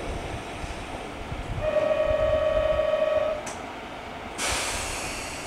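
A train horn sounds one steady note for about two seconds, starting about a second and a half in. About a second after it stops, a sudden burst of air hiss starts and fades, over the low rumble of the waiting trains.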